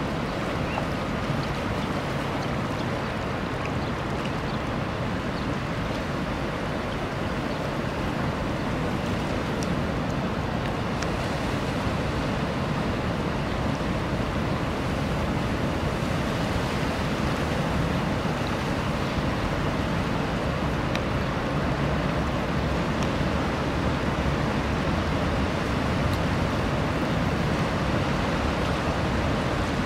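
Steady rushing of sea surf.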